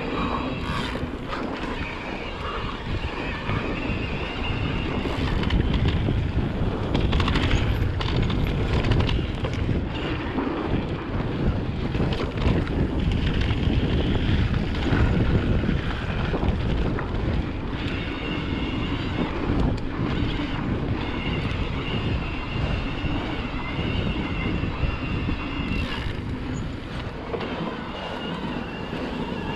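Wind rushing over the microphone with tyre noise and knocks from a mountain e-bike riding a dirt trail. A thin, high, steady whine comes and goes, mostly in the second half.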